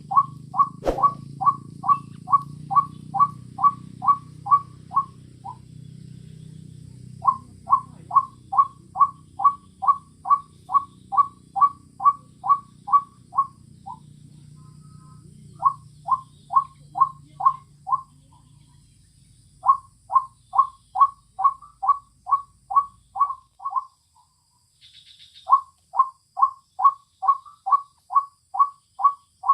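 White-breasted waterhen (ruak-ruak) call: short, clear notes repeated about three times a second in runs of several seconds, broken by brief pauses. A low hum underneath dies away about two-thirds of the way in.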